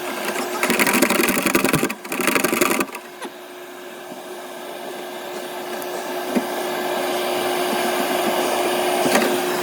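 Rough scraping and rubbing for about three seconds over a steady machine hum, then an even whirring that slowly grows louder.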